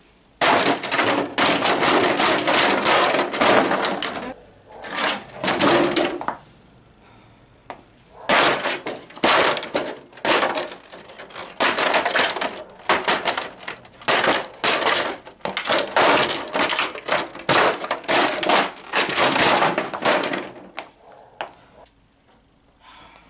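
Plastic parts of a 1/5-scale radio-controlled car cracking and crunching under rapid repeated blows. There are two long runs of breaking with a pause of about two seconds between them, and it tails off near the end.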